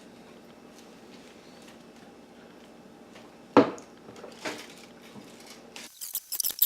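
Handling sounds at a meal table: a sharp knock about halfway through, a softer one a second later, then near the end a quick run of crackling clicks like a wrapper being handled.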